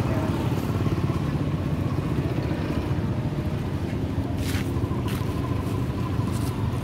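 A motor vehicle engine running steadily, a low rumble, with a few brief sharp sounds about four and a half and five seconds in.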